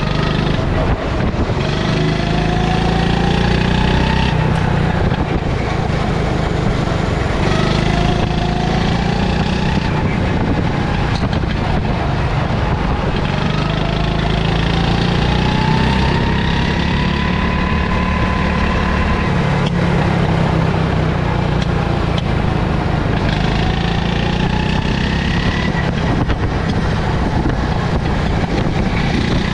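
Go-kart engine heard from the driver's seat as the kart laps the track. Its pitch rises as it accelerates and drops back as it lifts off, about four times over.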